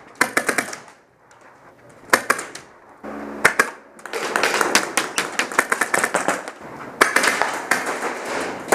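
Airsoft guns firing rapid bursts, several short strings of shots early on, then near-continuous fire from about halfway through.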